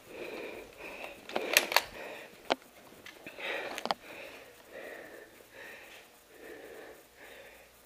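A person breathing hard close to the microphone, in a run of even breaths, with a few sharp clicks: the loudest a quick pair about a second and a half in, and single clicks a second and two seconds later.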